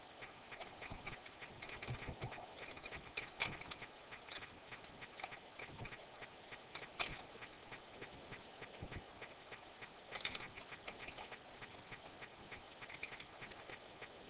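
Faint computer keyboard typing: irregular runs of light key clicks, with a few louder single clicks about three and seven seconds in.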